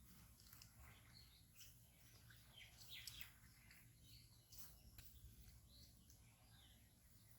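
Near silence, with faint scattered bird chirps over a low steady background rumble.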